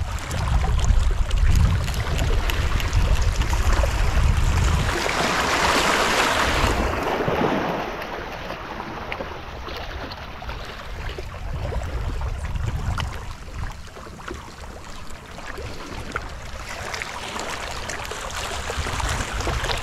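Sea waves washing on the shore, with wind buffeting the microphone. The wind rumble is heavy for the first several seconds, a louder wash of surf swells and falls about six seconds in, and a quieter steady wash follows.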